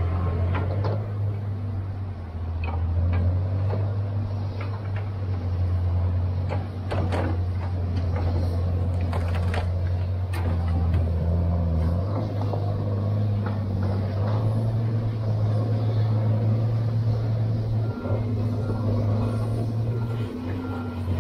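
Diesel engine of a John Deere tracked knuckleboom log loader running under hydraulic load as the boom swings and the grapple works, its drone shifting up and down in pitch. Scattered knocks and clacks of logs and grapple come through the first half. A repeating beep starts near the end.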